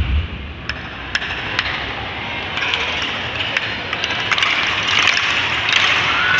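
Loud dance music with a heavy beat cuts off right at the start. A large crowd's noise follows, with a few sharp claps or knocks, and it swells toward cheering in the last few seconds.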